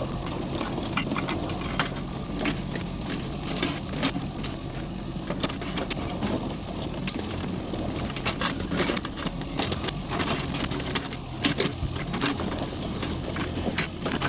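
Diesel engine of a Kubota KX71-3 mini excavator running steadily, with irregular clicks and clattering knocks over it.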